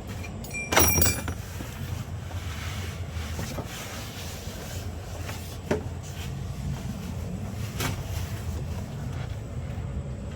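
Hand work on a truck cab's interior panels: a sharp metallic clatter with a brief ring about a second in, then a couple of single knocks, over a steady low rumble.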